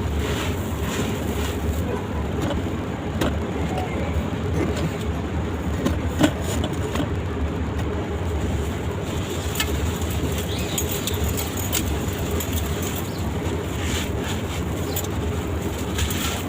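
Gritty sand-cement shapes crumbling: scattered small crackles and one sharper crack about six seconds in, over a steady low rumble.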